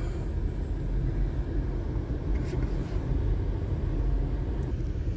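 Car driving along a narrow lane with a rough, broken road surface, heard from inside the cabin: a steady low rumble of tyres on the road and the engine.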